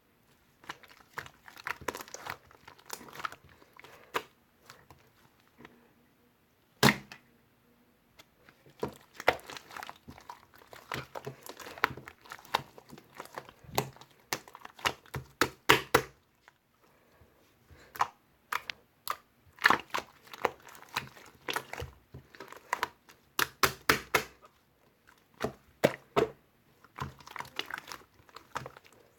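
Irregular crinkling and clicking handling noises, in quick clusters separated by short pauses, with one sharper click about seven seconds in.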